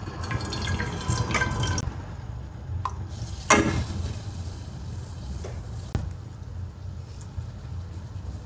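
Water poured from a glass into an aluminium cooking pot, splashing as it fills, then cooking oil poured in with a louder splash about three and a half seconds in, followed by a few small splashes.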